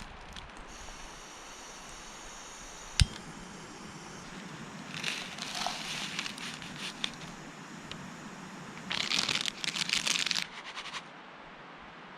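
Crinkling, rustling handling noise in two bouts, with a single sharp click about three seconds in.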